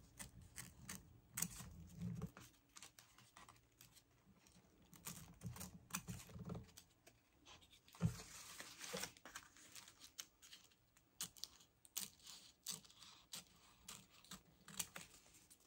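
Paper being handled and trimmed for a craft journal: faint, irregular light clicks and rustles, with a longer rustle of paper about eight seconds in.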